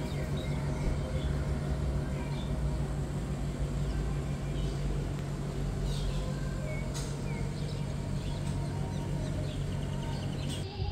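A steady low hum with short bird chirps scattered over it.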